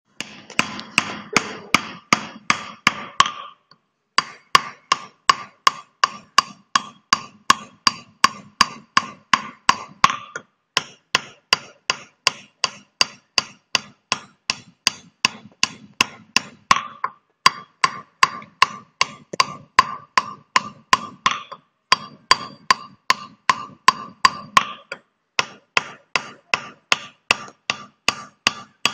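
Small hammer tapping a steel chisel against a sil-nora grinding stone, pecking pits into its face to re-roughen it. The strikes come about three a second in runs of several seconds, each with a short metallic ring, and the runs are broken by brief pauses.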